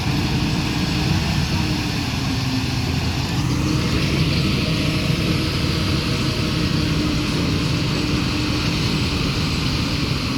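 Engine of heavy construction machinery running steadily at a constant pitch.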